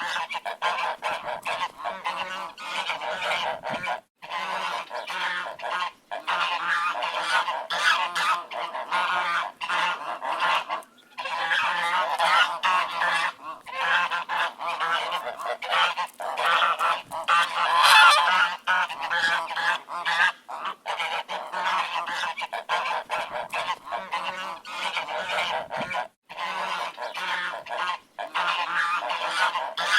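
A flock of ducks quacking continuously, many calls overlapping, with a few brief lulls and the loudest burst of calling a little past halfway.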